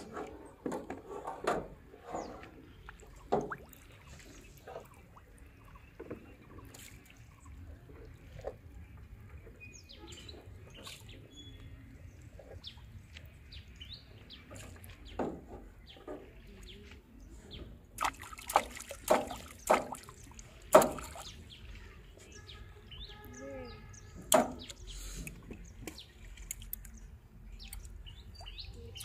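Scattered sharp knocks and small splashes as bait and fishing tackle are handled in a metal boat and dropped into still river water. A cluster of louder knocks comes about two-thirds of the way through, with a few bird chirps.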